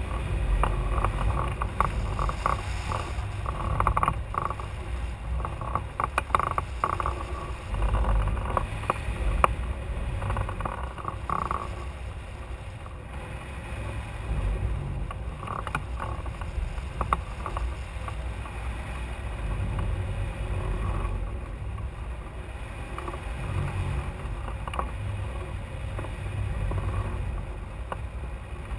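Air rushing past a camera mounted on a hang glider in flight: a steady low rumble of wind buffeting, with irregular rattling clicks that are busiest in the first dozen seconds.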